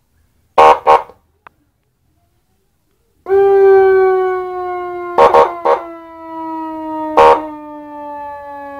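Electronic siren module sounding through a 10-watt horn loudspeaker. Two short blasts come about half a second in. From about three seconds in there is a long tone that slowly sinks in pitch, broken by several short blasts.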